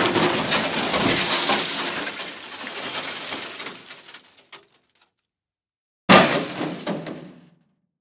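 Car crash sound effect: a loud crash with breaking glass, then clattering and tinkling debris dying away over about four seconds. After a second of silence, a second sudden crash hits about six seconds in and fades within a second and a half.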